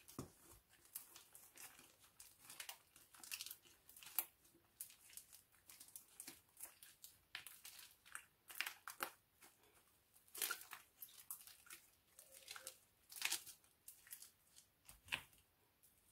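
Black slime made with glue and shaving foam being kneaded and stretched by hand, giving quiet, irregular crackles and clicks, with a few louder ones scattered through.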